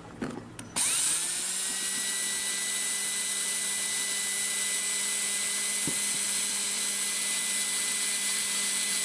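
Ridgid cordless drill with a half-inch bit, boring a hole through the thin wall of a plastic storage box. The motor starts about a second in and runs at a steady high speed with an even whine.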